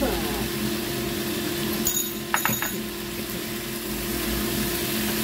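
Wooden spatula stirring and tossing water spinach in a frying pan, with a few sharp knocks of the spatula against the pan a little after two seconds in, over a steady low hum.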